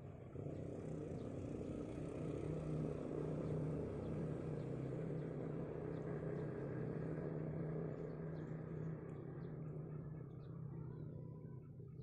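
A motor engine running steadily with a low, even hum, fading away over the last few seconds.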